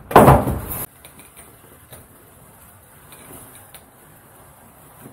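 A brief loud rustling scrape against the foam board, then a faint, steady hiss with a few soft ticks as an electric hot knife melts its way through the foam insulation board.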